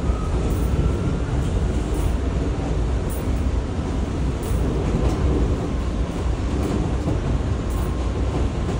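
A New York City J/Z subway train running, heard from inside the car: a steady low rumble of wheels and running gear, with light clicks from the rails now and then.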